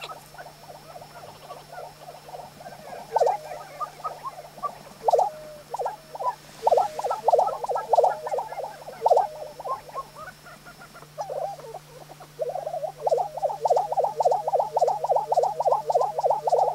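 Male lesser prairie chickens giving their lek display calls: short runs of rapid, pulsed gobbling notes from inflated air sacs. The calls come in scattered bursts at first and turn into a dense, fast run of pulses over the last few seconds.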